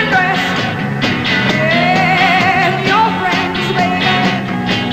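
Psychedelic rock song: a woman sings lead over a full rock band with electric guitars and a steady bass line.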